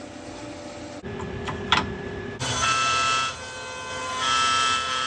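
CNC router cutting ash wood, heard in short clips cut together: a sharp click near the middle, then a steady high-pitched spindle whine that gets louder twice as the bit bites in.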